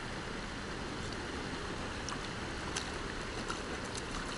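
Steady rush of river water running over a shallow rocky riffle, with a few faint clicks in the second half.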